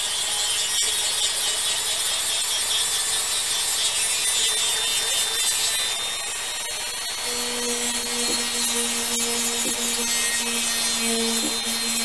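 Handheld rotary tool running at high speed, its bit grinding a small plastic part to thin it: a steady high whine over a grinding hiss, with a lower hum joining about seven seconds in.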